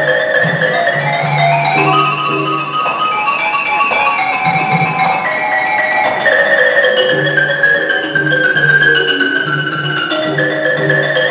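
Ranat ek, the Thai boat-shaped hardwood xylophone, played solo in fast running mallet lines that rise and fall. It is accompanied by low hand-drum strokes and a steady high tick about every three-quarters of a second marking the beat.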